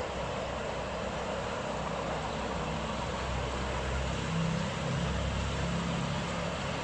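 Miniature ride-on train under way: the steady rumble of its carriages' wheels on the rails, with the low drone of its small petrol engine, an old ride-on lawn mower engine. The engine drone grows a little stronger about halfway through.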